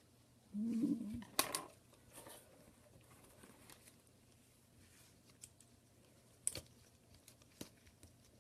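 Sparse small clicks and taps of tools working on an iPhone 6 screen assembly, prying at its glued shield, with a sharp click about a second and a half in and another near six and a half seconds. Just before the first click comes a brief low hum.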